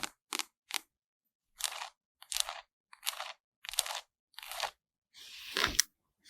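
Crisp ASMR crunching sound effects. Three short sharp clicks come first, then after a pause a run of six crunches, each about half a second long, the last one longer and loudest.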